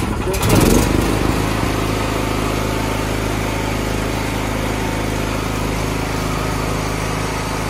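ZGC 7500 petrol portable generator engine just started on the ignition key, surging up in the first second, then running steadily at a constant speed.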